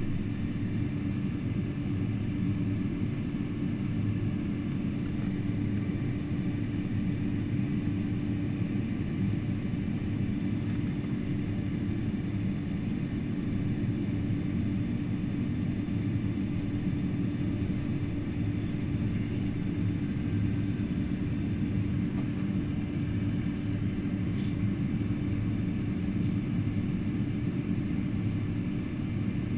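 Steady low rumble of a Boeing 747-400's cabin noise on the ground after landing, with a constant hum running through it.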